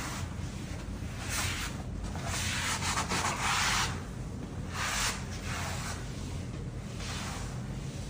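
Floor-scrubbing machine running with a steady low motor hum while its brush scrubs the wet floor, giving several swishing surges of scrubbing noise, the longest and loudest between about two and four seconds in.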